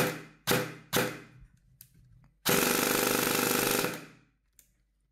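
Specna Arms HK416C electric airsoft rifle with a high-cycle gearbox firing three quick single shots about half a second apart, then a rapid full-auto burst lasting about a second and a half.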